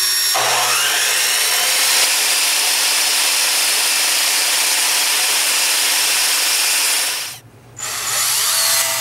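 Chop saw running while a cordless drill spins a block of 2x4 against its blade, the blade shaving the wood down into a dowel: a loud, steady power-tool whine with the rasp of wood on the blade. The noise drops out briefly about seven and a half seconds in, then starts again.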